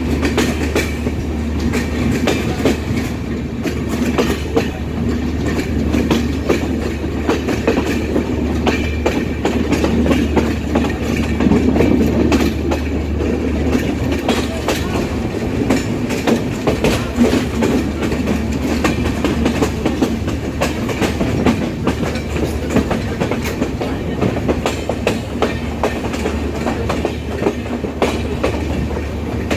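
Banalata Express passenger train running on the rails: a steady low rumble with a dense clatter of wheels over the track.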